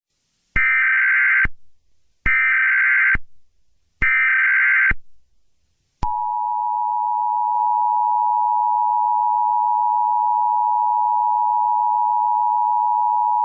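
Emergency Alert System tones. Three short, shrill data bursts (the SAME header) sound about a second and a half apart. About a second after the third, the steady two-tone EAS attention signal starts and holds.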